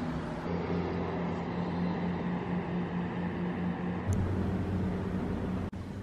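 A boat's motor running steadily with a low hum over the lake, a brief knock sounding about four seconds in.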